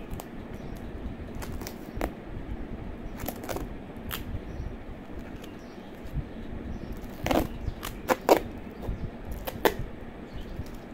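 Hands handling a tape-bound plastic container and its paper and plastic wrapping: scattered crinkles and light clicks, with a few sharper clicks in the second half.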